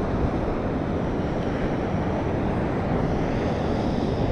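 Steady roar of wind and surf on a storm-swept beach, with wind buffeting the microphone. The sound is low and even, with no separate events.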